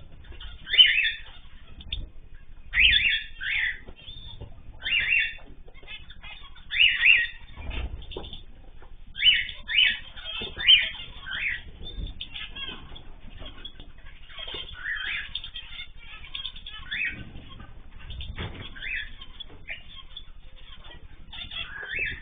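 Pet birds in an aviary calling with short, repeated chirps, about one every second or two, with wing flutters in between.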